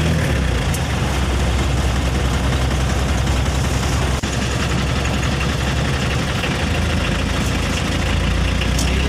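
A heavy truck engine idling steadily.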